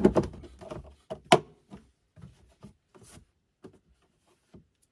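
Breath blown hard through a heat pump's condensate drain hose, a rough rushing that stops about a second in, to test the hose for a clog. Then a sharp click and a few scattered light knocks and taps of handling.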